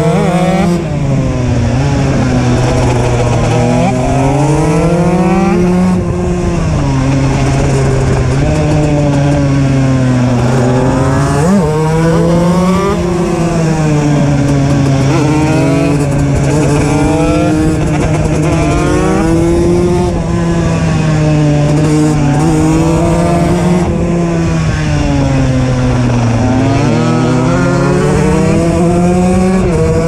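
KTM EXC 125 single-cylinder two-stroke enduro engine with an HGS exhaust, ridden at full throttle. The revs climb and drop over and over, every few seconds, as it pulls through the gears and backs off for bends.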